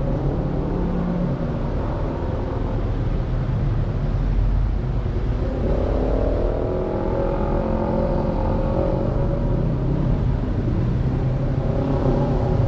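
Car engine and road rumble heard from inside the cabin as the car moves off after ordering at the drive-thru; a little past five seconds in the engine note rises as it picks up speed, then holds steady.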